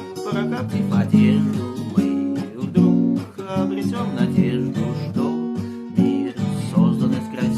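Acoustic guitar strumming chords in a steady rhythm, an instrumental passage of the song with no singing.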